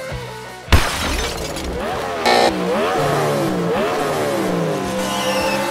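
A sharp bang about a second in, then a car engine revving up and down several times. It is a dubbed engine sound effect, since diecast toy cars have no motor.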